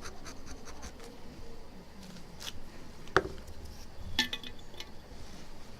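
Plastic knife scraping old adhesive off a phone screen in quick short strokes, followed by a few light clicks and taps, the sharpest about three seconds in.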